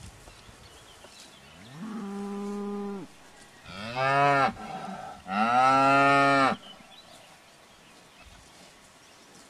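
Salers cattle mooing three times: a quieter, higher call, then two loud, deeper calls, the last one the longest.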